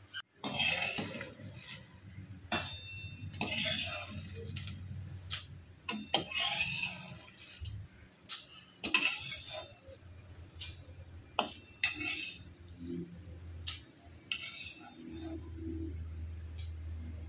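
A perforated steel skimmer scraping and clinking against an aluminium kadhai as crisp dry-roasted red chillies are scooped out of it: a string of short sharp clinks and scrapes over a low hum.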